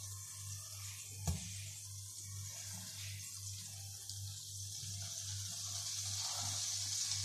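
Margarine sizzling as it melts in a hot frying pan, a steady hiss that grows louder toward the end, over a low hum. One sharp knock about a second in.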